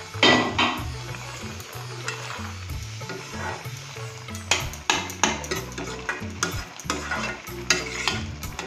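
A metal spatula stirs and scrapes in a metal wok of bubbling, sizzling arum-stem and dried-fish curry, knocking against the pan several times.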